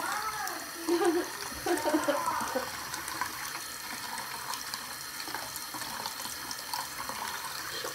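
Bathroom sink faucet running a thin steady stream of water into the basin, with a few brief voice sounds over it in the first three seconds.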